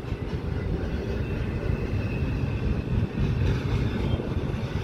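Norfolk Southern double-stack intermodal train rolling past: a steady low rumble of container cars on the rails.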